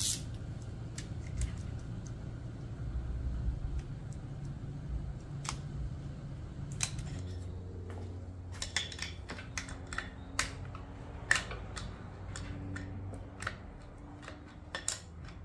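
Scattered small metallic clicks and taps as camshaft bearing caps and their bolts are fitted by hand on an aluminium cylinder head, sharpest right at the start and coming more often in the second half. A low steady hum runs underneath.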